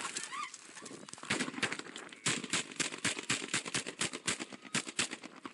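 A rapid string of gunshots from bodycam footage of an officer-involved shooting, several shots a second, coming thickest in the second half.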